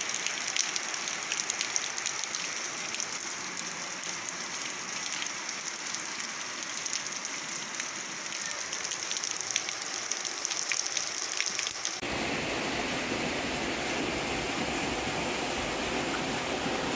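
Steady rain falling on pavement and buildings: an even hiss with many small drop ticks. About twelve seconds in, the sound changes abruptly to a steadier, deeper rushing noise.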